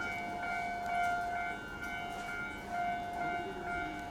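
Steady high-pitched electric whine held at one pitch with overtones, swelling and easing every second or so over a faint hiss of station background noise.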